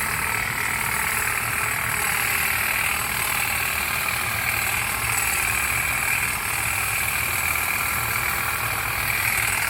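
Battery-powered STIHL HSA 40 hedge trimmer running steadily at constant speed, a continuous even mechanical buzz with a high whine.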